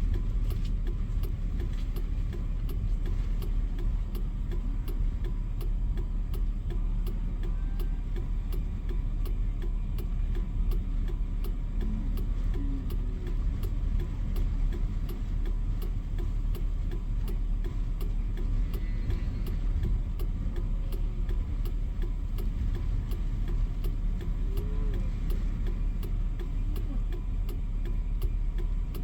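A vehicle engine running steadily, with a light regular ticking about twice a second.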